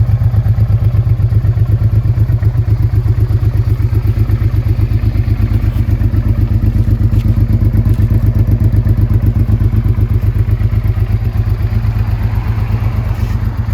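Honda Bros 650 (RC31) V-twin idling through an aftermarket muffler with a carbon silencer, a steady, even pulsing beat that holds the same speed throughout.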